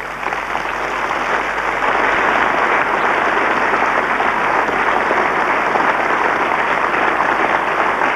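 Studio audience applauding, swelling over the first couple of seconds and then holding steady.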